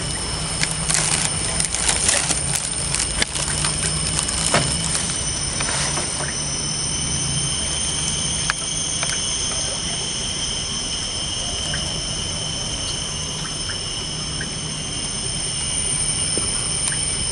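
Outdoor pondside ambience: a steady high-pitched whine made of several held tones, with a low hum beneath it and scattered sharp clicks in the first few seconds.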